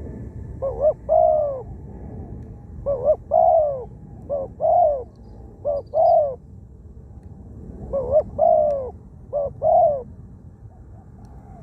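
Spotted doves cooing: about six short phrases of two or three coo notes, spaced a second or two apart, over a steady low background hiss.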